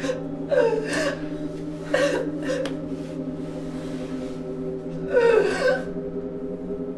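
A woman sobbing in short, gasping breaths, several times, the longest and loudest about five seconds in, over a low held music drone.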